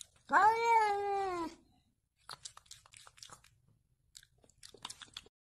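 Domestic cat giving one long meow, about a second long, that rises slightly and then falls, followed by a few faint clicks and rustles.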